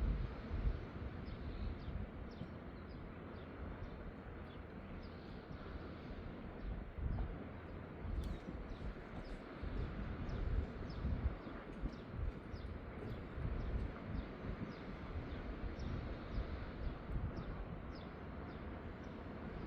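Seaside outdoor ambience: wind rumbling unevenly on the microphone over a steady background rush, with scattered short, high bird chirps.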